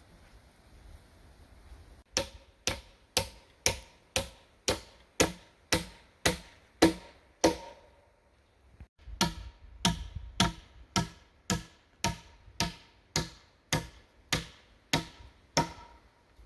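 Hammer driving a nail into a log pole: steady, ringing strikes about two a second, in two runs of about a dozen blows with a short pause between.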